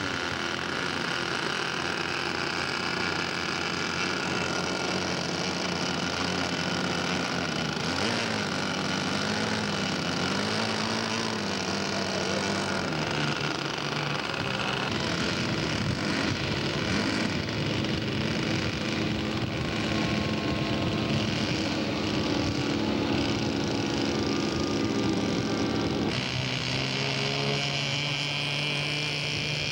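Engine of a radio-controlled scale model Auster in flight, running steadily, its pitch wavering up and down as it passes.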